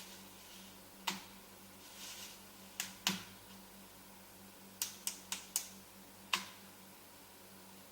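Eight sharp clicks at irregular intervals, four of them in quick succession about five seconds in, over a faint steady hum.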